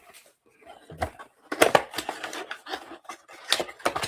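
Packaging and trading-card pack wrappers being handled, crinkling and rustling in several short bursts.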